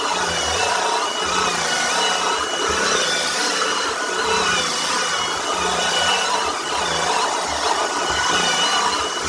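Shark EVOPOWER SYSTEM iQ+ CS851J cordless stick vacuum running with a steady high motor whine, its power head sucking up sawdust. The noise swells and fades as the head is pushed back and forth.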